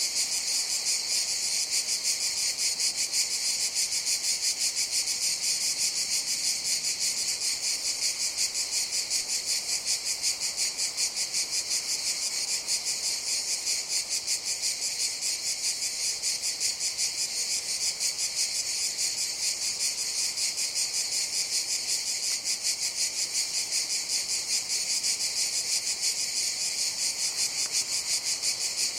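Cicadas calling in a continuous chorus: a steady, high-pitched buzz that pulses rapidly and evenly, without a break.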